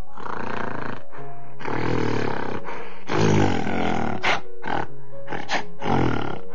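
Background music with a steady held chord, over which a large animal gives a run of loud, rough calls: three long ones of about a second each in the first four seconds, then several short ones.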